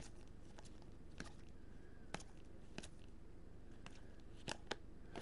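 A stack of Bowman Chrome baseball cards being flipped through by hand, giving a handful of faint, sharp clicks as card edges snap past one another, over a low steady hum.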